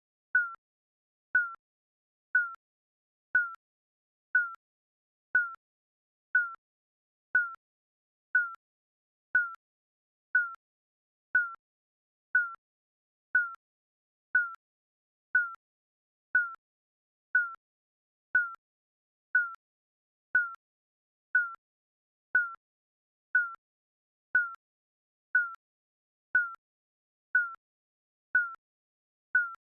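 Digital countdown timer beeping once a second: a short, high electronic blip that dips slightly in pitch, repeating evenly.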